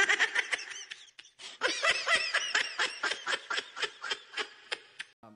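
Laughter: a short burst, a brief pause, then a longer run of rhythmic laughs that tapers off, in reaction to a joke.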